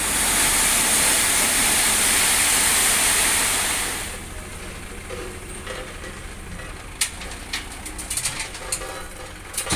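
A loud, steady hiss that fades away about four seconds in, leaving quieter background noise with a few sharp clicks.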